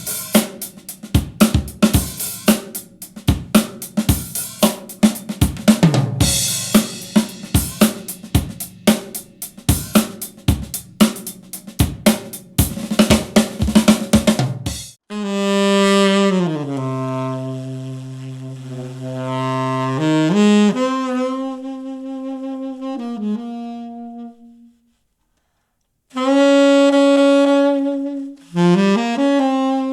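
Test music played back through a compact Genelec studio monitor and picked up by a single microphone: a solo drum kit with snare, hi-hat and bass drum plays a busy beat, then stops abruptly about halfway through. A wind instrument, likely a saxophone, follows with long held low notes that step down in pitch. It pauses for about a second and a half, then resumes with more notes near the end.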